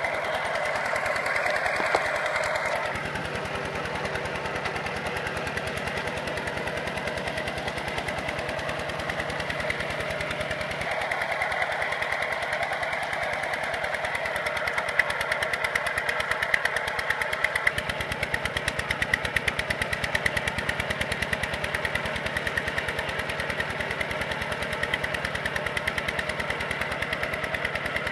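Single-cylinder diesel engine of a Kubota RT120 walking tractor running under load in deep mud, a rapid, even chugging whose note changes a few times.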